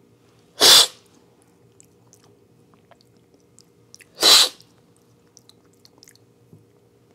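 Two loud, sharp slurps of coffee from a cupping spoon, about three and a half seconds apart: the coffee is sucked in hard to spray it across the palate for tasting.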